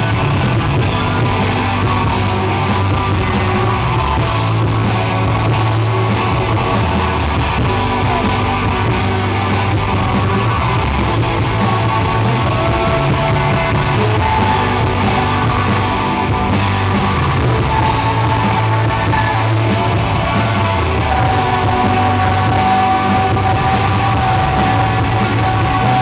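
Live rock band playing loudly: electric guitars, bass and drums, with long held lead notes that stretch out near the end.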